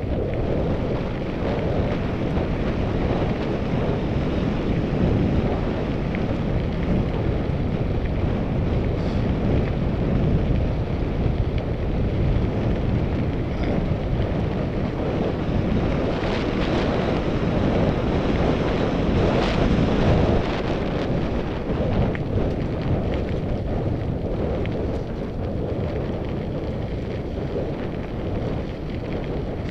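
Wind rushing over a helmet camera's microphone while riding a mountain bike on a dirt singletrack trail, mixed with the rumble and rattle of the bike over the ground. A few sharper rattles come about halfway through.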